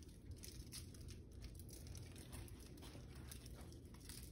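Faint, irregular ticking and rustling of a seasoning shaker being shaken over raw chicken pieces laid on parchment paper.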